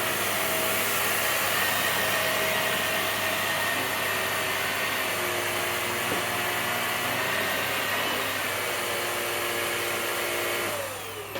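Vax Air Stretch upright vacuum cleaner running steadily on carpet. Near the end its motor winds down with a falling whine as it is switched off.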